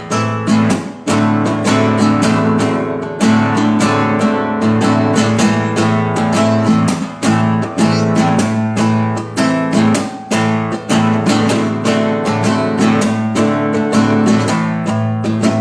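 Acoustic guitar strummed steadily in a rhythmic pattern, playing chords of an original instrumental piece.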